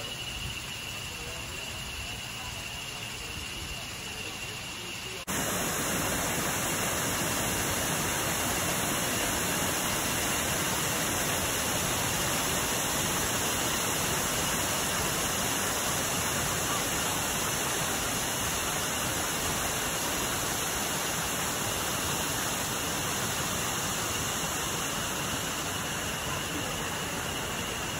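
Steady rushing of a waterfall, cutting in abruptly about five seconds in. Before it, quieter forest background with a steady high insect whine that carries on under the water.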